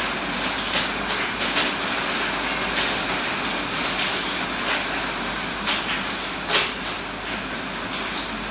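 Steady rushing background noise with scattered light taps and clicks from hands working with plates and rice paper at a table; the sharpest tap comes about six and a half seconds in.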